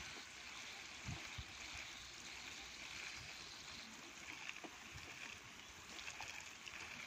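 A stream of water splashing onto a young mango tree's leaves and the ground below: a steady, faint hiss of falling water with a few soft low knocks.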